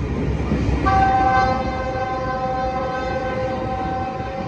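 Metrolink commuter train's horn sounding one long chord of several notes, starting about a second in, over the rumble of bilevel passenger cars rolling past.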